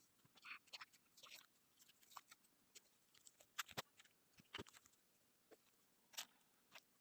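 Faint, scattered clicks and light rustles of an unboxed item and its packaging being handled, with a few sharper taps near the middle and one near the end.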